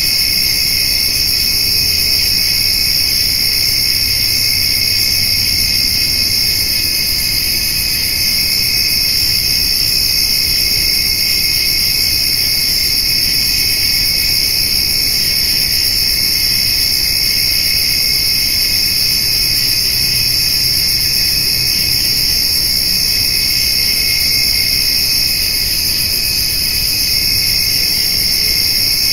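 Crickets and grasshoppers singing in a steady, unbroken chorus, several high-pitched trills layered together without pause.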